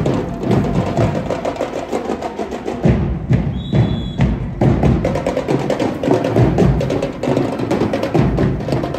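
Marching band drumline playing a fast drum cadence, dense rapid strikes that thin briefly in the middle, with a short high steady tone about three and a half seconds in.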